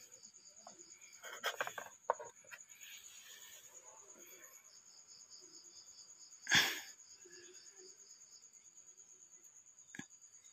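Insects chirping steadily in a high pulsing trill, with a few light handling knocks and one louder short sudden noise about six and a half seconds in.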